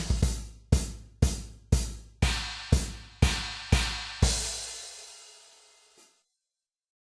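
Background music with a drum kit playing the final beats, hits about twice a second with cymbals, ending on one last hit that rings away, then silence.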